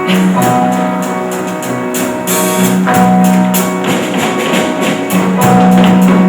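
Instrumental accompaniment of a stage-musical song playing between sung lines: held low notes under a steady beat of light percussion hits.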